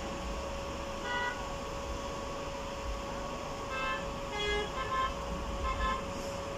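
Car horns honking in stalled traffic: one short honk about a second in, then four short honks in quick succession in the second half, over a steady background hum.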